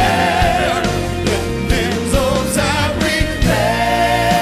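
Live band music: singing over drums, cymbals and piano.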